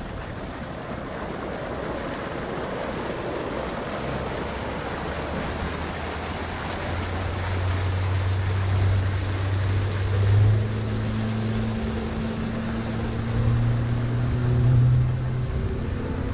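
Wind and water lapping around a small boat. About halfway through, a low engine hum builds up and shifts in pitch a few times.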